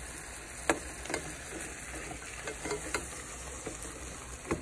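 Ground turkey sizzling in a steel pot as a black plastic spoon stirs and breaks it up, with a few sharp knocks of the spoon against the pot.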